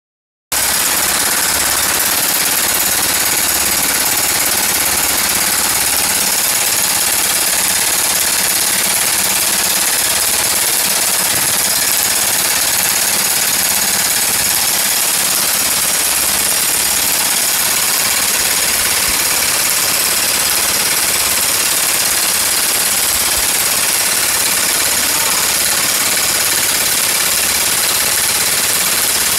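Teeth-cutting machine chiselling teeth into round chainsaw file blanks: a loud, rapid, steady mechanical hammering.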